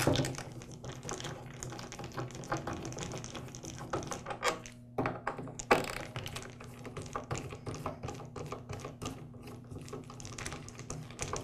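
Screwdriver backing out the screws from the plastic top handle of a DeWALT DW705 miter saw: an irregular run of small clicks and taps.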